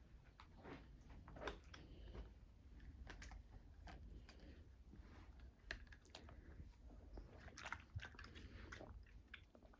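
Faint, irregular small clicks and mouth sounds of a child drinking water, over a steady low rumble of wind on the microphone.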